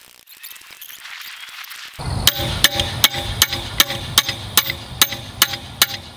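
Faint rustling for about two seconds, then background music cuts in with a steady, sharp woodblock-like beat, about two and a half beats a second.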